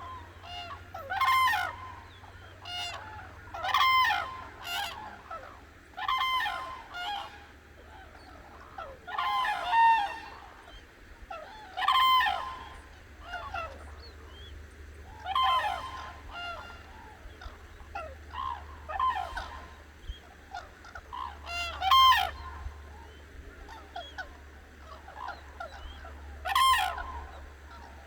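Cranes calling: loud, trumpeting calls rich in overtones, repeated every couple of seconds and often in quick pairs, with fainter calls from other birds in between.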